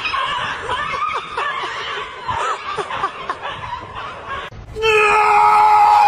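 A person laughing and giggling in short bursts. About four and a half seconds in, after a sudden cut, a louder steady sound takes over, held at one pitch.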